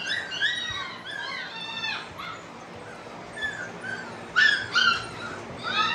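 Litter of American bully puppies whining and yipping: a string of short, high-pitched cries that bend up and down in pitch, several coming in quick runs.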